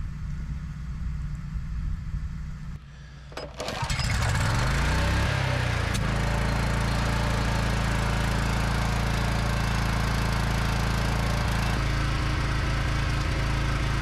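Portable generator's small gasoline engine catching about four seconds in, revving up over a couple of seconds and settling into steady running; its note shifts slightly about twelve seconds in.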